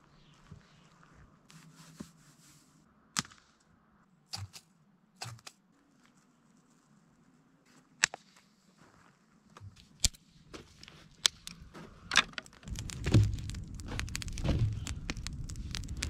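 Sharp, separate snaps and knocks of dry driftwood being broken and worked for a fire, several seconds apart. About 13 seconds in, a campfire is burning with a steady low rumble and dense crackling pops.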